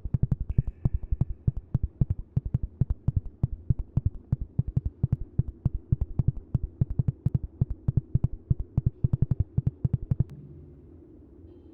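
Sonified radio pulses of the Vela Pulsar: a rapid, even train of low throbbing pulses, several a second, over a low hum. The pulses stop about ten seconds in, leaving a faint low drone.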